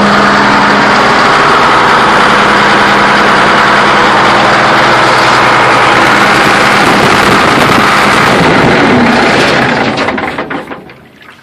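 Excavator engine running loud and steady close up, then winding down and stopping near the end as it is shut off at its shutoff cable.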